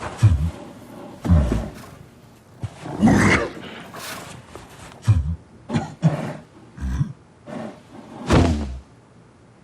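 A bear growling and roaring in about eight short, rough bursts.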